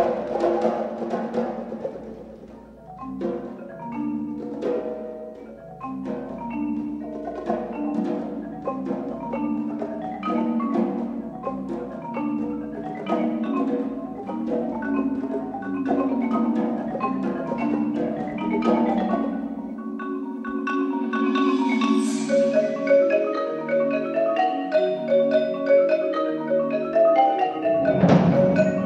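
Percussion ensemble music led by a marimba playing quick runs of mallet notes, with other mallet instruments joining higher up from about two-thirds through. A loud stroke that covers low to high pitches comes near the end.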